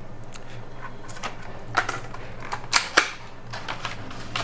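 Small plastic and metal laptop parts being handled, making a string of sharp clicks and clacks, the loudest about three seconds in, over a steady low hum.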